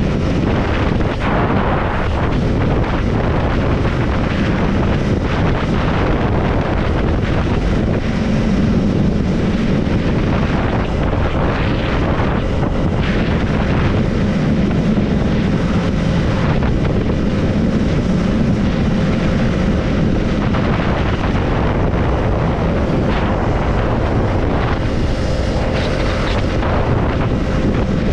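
Triumph Scrambler 400 X's single-cylinder engine running steadily as the motorcycle is ridden along the road, with wind noise on the microphone.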